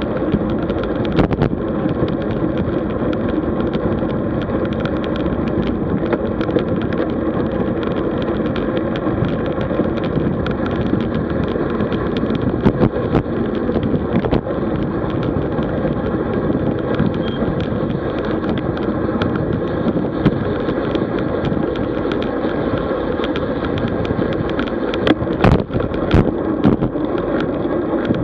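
Wind rushing over the microphone and tyre and road noise from a road bike riding along, with occasional sharp knocks and rattles, the loudest cluster coming about 25 seconds in.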